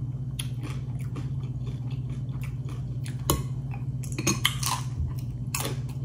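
A person chewing and crunching fried tortilla chips with cheese dip, in many short, sharp crunches, over a steady low hum.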